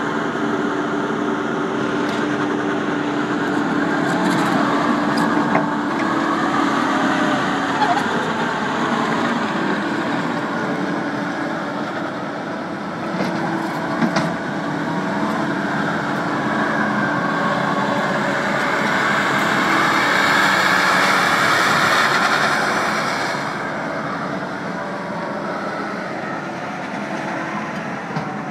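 Takeuchi TL150 tracked skid steer's 97-horsepower diesel engine running, its level rising and falling, loudest around two-thirds of the way through. A few sharp knocks sound along the way.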